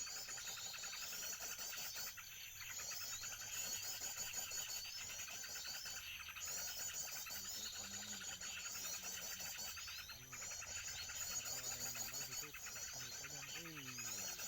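Small songbirds chirping in rapid, repeating high phrases broken by short pauses, with a low sliding hum near the end.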